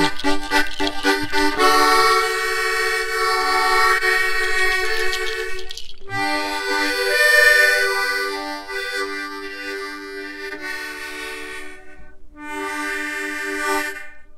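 Harmonica played in chords: a quick choppy chord rhythm at first, then held chords in phrases, with short breaks about six and twelve seconds in.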